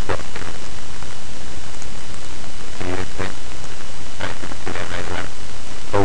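Loud steady hiss and low hum from a poor-quality microphone, with brief stretches of indistinct speech about three seconds in and again about four to five seconds in.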